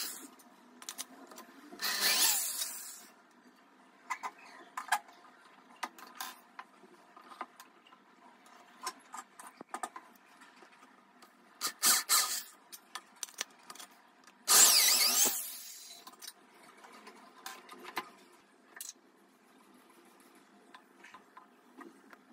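Wooden blocks and metal bar clamps being handled on a tile floor: scattered knocks and clicks, with three short scraping bursts, about two seconds in, about twelve seconds in, and the loudest about fifteen seconds in.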